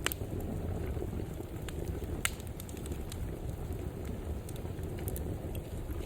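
Wood fire burning in a fireplace: a steady low rumble of flames with a few sharp crackles and pops, the loudest about two seconds in.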